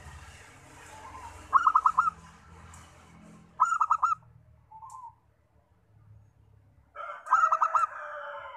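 Zebra dove singing: three bursts of about four rapid, clipped cooing notes each, a couple of seconds apart.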